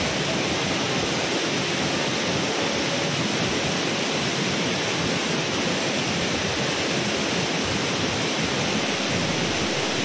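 Waterfall pouring over rock ledges: a steady, even rush of falling water.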